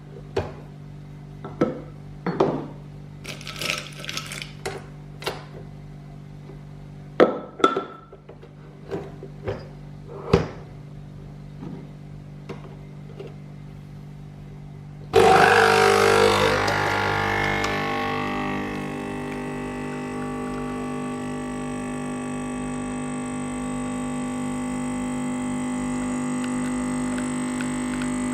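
Clicks and knocks of a coffee machine being readied, then about halfway through the machine starts brewing with a sudden loud burst that settles into a steady pump hum.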